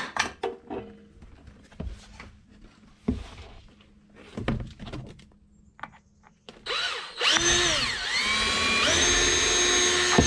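Scattered handling clicks and knocks, then about six and a half seconds in an electric drill spins up, its whine dipping in pitch as it bites and then holding a steady higher pitch before it stops abruptly: drilling a hole through the bottom of a boat hull for the rudder.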